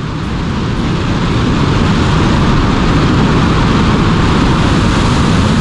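Soyuz rocket engines firing during launch: a loud, steady rushing noise that builds over the first second or so and then holds.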